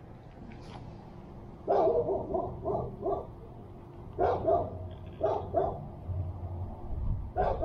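A dog barking repeatedly, in runs of short barks, starting about two seconds in.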